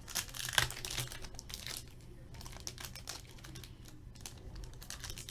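Trading card pack being opened by hand: the wrapper crinkles and the cards click and slide as they are handled, in irregular small clicks and rustles.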